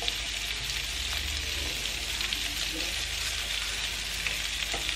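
Slices of sucuk sausage sizzling steadily in a hot frying pan, the frying starting as the slices go into the oil.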